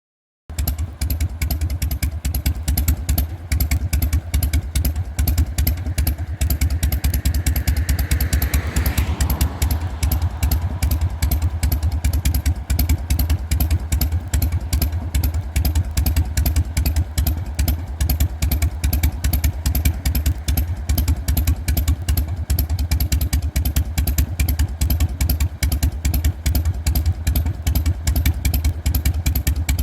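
1999 Harley-Davidson FXSTS Softail Springer's 1340 cc Evolution V-twin idling through drag pipes fitted with a silencer baffle, a steady, loping 'potato' three-beat. It cuts in about half a second in. The beat is somewhat uneven because only the baffle was changed, without resetting the stock CV carburettor or the Dyna S ignition.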